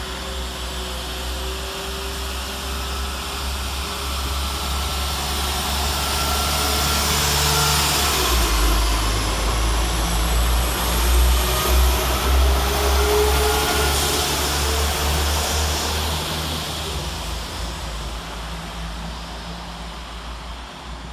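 West Midlands Railway Class 172 Turbostar diesel multiple unit departing and passing close by. Its underfloor diesel engines and transmission rumble with a steady whine, growing louder as it comes past, at its loudest in the middle, then fading as it runs away.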